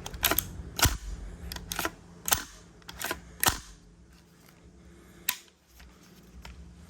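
Sharp metallic clicks and clacks, about seven of them at irregular intervals, from a WE M16A4 gas blowback airsoft rifle as its parts are worked by hand.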